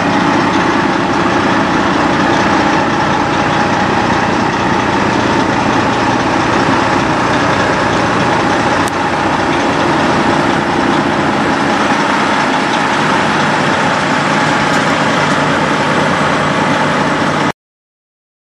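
Semi truck's diesel engine idling steadily. The sound cuts off abruptly near the end.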